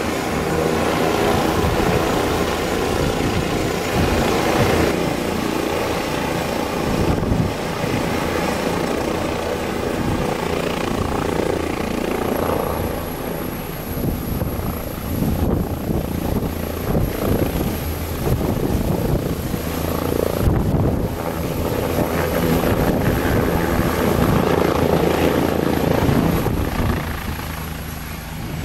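Leonardo AW169 helicopter's twin Pratt & Whitney PW210A turboshaft engines and main rotor at takeoff power as it lifts off and climbs away. Steady loud rotor and turbine noise with a fast beat of the blades, a thin high whine joining about halfway through, easing off a little near the end as the helicopter moves away.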